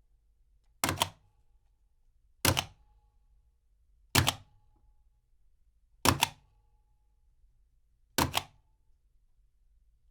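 Large office rubber stamp pressed down repeatedly, each stroke a sharp double knock with a faint short ring, about every two seconds, five times and a sixth starting at the very end.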